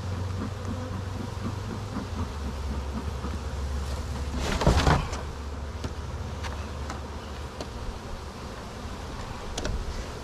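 Honeybees buzzing steadily around a hive box, over a low steady rumble, with one brief louder rush of noise about halfway through.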